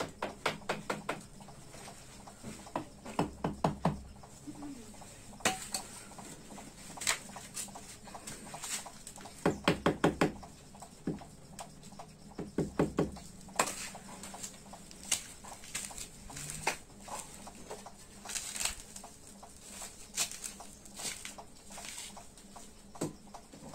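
Ceramic wall tiles being tapped into their mortar bed with a trowel: short clusters of quick light knocks, with single knocks in between.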